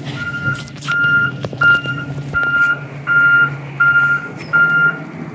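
Garbage truck's reverse alarm beeping steadily, about one and a half beeps a second, over the low running of its natural-gas engine; the beeping stops near the end.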